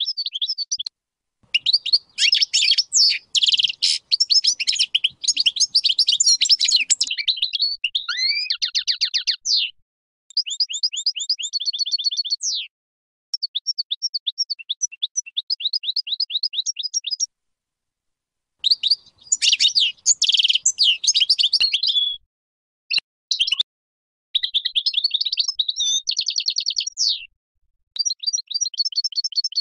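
European goldfinch of the large 'Major' type singing: phrases of fast liquid twittering and rapid trills of repeated notes, each lasting a few seconds, with short pauses between them.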